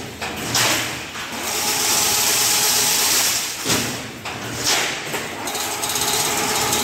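Automatic chain link fence machine running while it weaves wire mesh. It makes a steady mechanical hum broken by hissing swishes that come and go every second or so.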